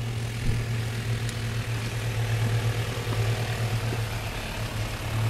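A car engine running nearby with a steady low hum.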